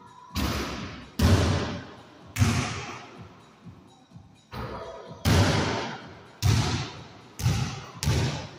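A basketball bouncing and striking hard surfaces in a small, hard-walled room: about eight sharp, irregularly spaced thumps, each followed by a short echo.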